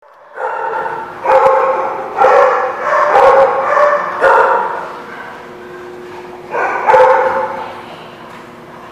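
Dogs barking in rough play: a quick run of loud barks through the first half, a pause, then another loud bark burst a little before the end.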